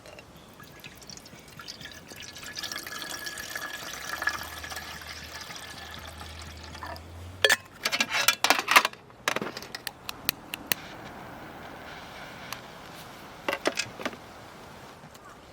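Water being poured into a container for about six seconds, followed by a burst of sharp clinks and knocks, with a few more single clicks later.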